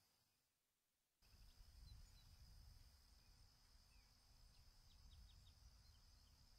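Near silence: faint outdoor ambience with a steady high insect trill and a few faint bird chirps, over a low uneven rumble that comes in about a second in.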